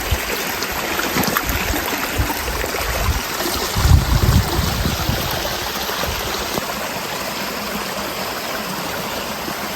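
Fast-flowing floodwater rushing steadily through a canal, storm runoff coming off the mountain. A few low thumps break in during the first half, the biggest about four seconds in.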